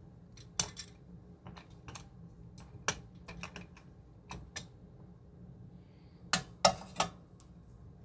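Scattered light clicks and clinks of channel-lock pliers and small regulator parts being handled as an air compressor's pressure regulator is twisted apart. Three sharper clacks come close together near the end.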